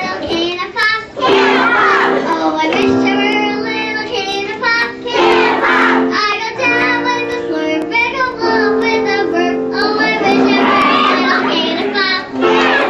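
A young girl singing solo into a microphone, holding long notes one after another.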